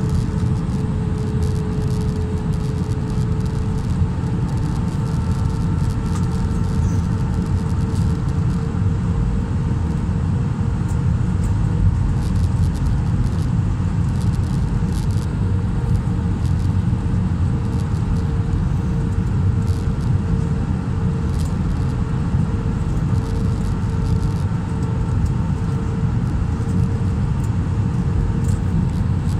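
Cabin noise inside an Airbus A320 airliner on its landing approach: a steady low rumble of engines and airflow, with a steady hum over it that begins to pulse slowly about halfway through.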